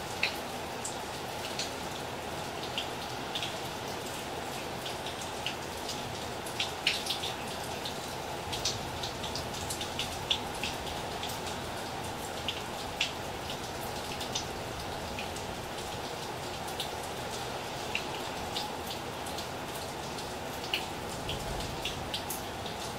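Steady rain: an even hiss with sharp drops ticking close by at irregular intervals, several at a time in places.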